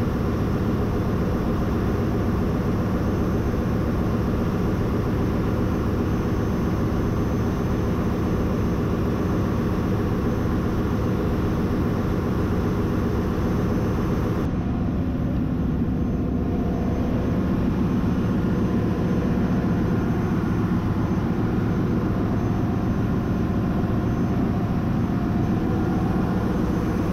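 Steady machinery drone of a ship's engine room, mostly low with a hiss above it; the higher hiss drops away suddenly about halfway through.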